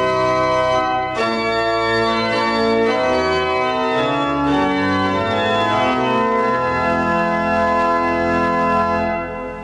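Organ playing the postlude, sustained chords moving from one to the next with a short break about a second in, then fading out near the end.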